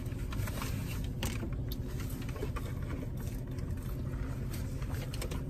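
Steady low hum of a car's engine idling, heard from inside the cabin, with a few faint small clicks over it.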